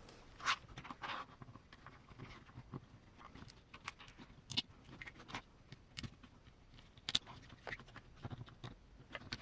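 Faint, irregular clicks and taps of small plastic parts and metal screws of an RC crawler kit being handled.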